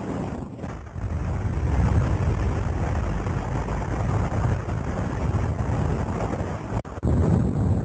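Freefall wind blasting over a camera microphone: a steady, loud rush of air, heaviest in the low end, with a brief dropout near the end.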